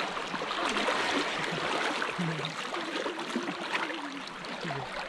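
Small hill stream flowing steadily, a continuous rush of water, with faint voices in the background.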